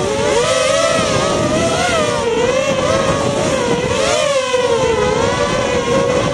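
FPV racing quadcopter's electric motors and propellers whining in flight, heard from a camera on board the quad. The pitch rises and falls over and over as the throttle changes through the turns.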